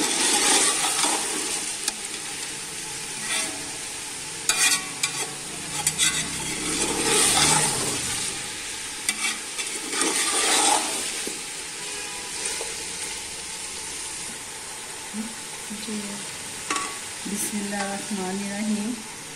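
Chicken pieces sizzling as they fry in a metal pot: a steady hiss, broken now and then by short scrapes of a spoon stirring against the pot.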